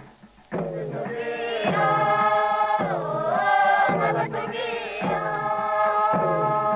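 A group of Papua New Guinean villagers chanting a song together, phrase after phrase. The singing breaks off briefly and comes back in about half a second in.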